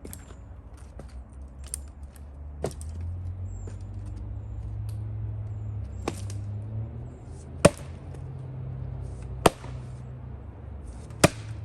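Axe splitting firewood by hand: five sharp chops roughly one and a half to two seconds apart, the last three loudest.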